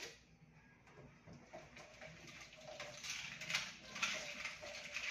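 Washing up at a kitchen sink: scattered clinks and knocks of dishware, with tap water running and growing louder from about halfway through.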